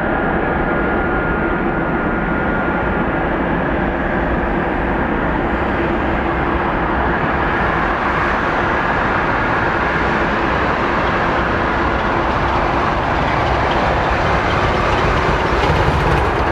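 Boeing 787-9's jet engines running at idle: a loud steady rush with a low hum and a higher whine held steady throughout, swelling slightly near the end.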